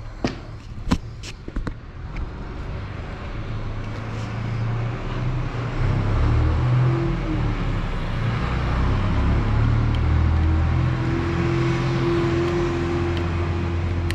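A few sharp knocks, then a small engine running, getting louder over the first few seconds and then holding a steady run. This is plausibly the RTR MAX brush cutter's engine being run after its starter repair.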